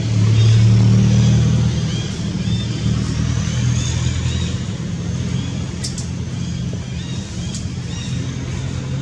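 A motor vehicle engine running, a steady low hum that is loudest in the first second or two and then settles slightly lower.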